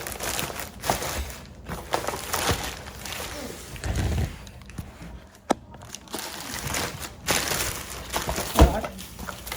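A cardboard delivery box being handled and opened: packaging rustling and crinkling with scattered knocks, and one loud thump near the end.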